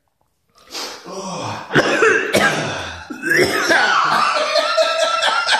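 Harsh coughing and throat clearing from men irritated by tear gas. It starts about half a second in after a brief silence, and turns to hoarse, voiced coughs and rasping towards the end.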